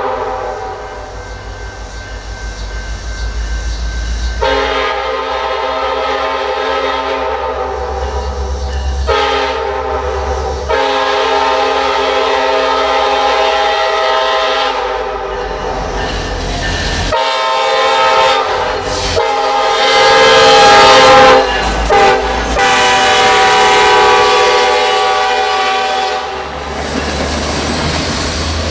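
Diesel locomotive air horn sounding a series of long and shorter blasts, loudest about twenty seconds in. The wheels of the passing train click over the rail joints.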